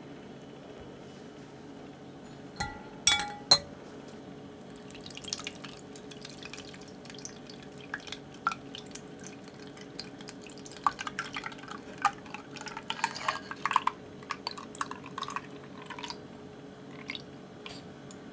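A few sharp, ringing glass clinks about three seconds in. Then the egg-and-milk custard mixture is poured from a glass bowl through a fine metal mesh strainer into a glass measuring jug, splashing and dripping with many small irregular clicks for about ten seconds.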